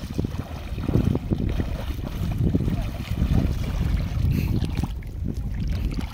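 Wind buffeting the microphone in a low, uneven rumble, over the splashing of feet wading through shallow seawater.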